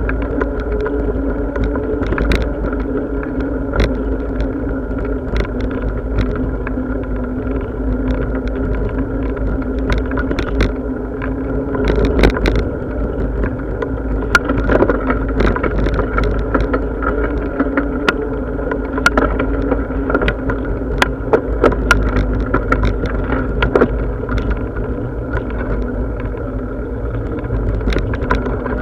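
Ride noise of a bicycle on the move: a steady low rumble with a constant hum, broken by frequent sharp clicks and rattles.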